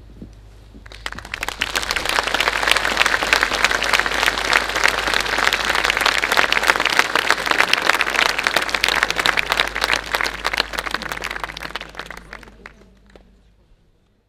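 Audience applauding: clapping starts about a second in, swells to full applause, and fades out near the end.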